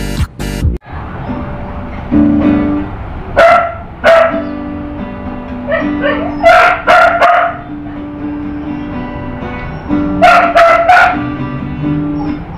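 Electronic dance music cuts off just under a second in. After that an acoustic guitar plays chords, with loud bark-like cries in short bursts about three and a half and four seconds in, again from six to seven and a half seconds, and from ten to eleven seconds.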